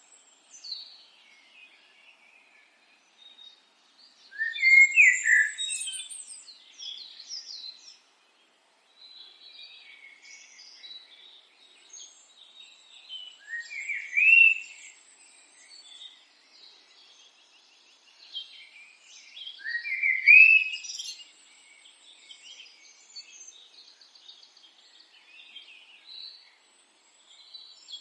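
Wild birdsong: several birds chirping and trilling, with a louder rising phrase repeated about four times, roughly every six to eight seconds.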